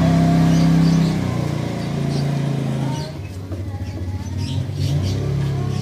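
A low droning hum that holds a steady pitch, steps down about two seconds in and shifts again later, with short high bird chirps over it in the second half.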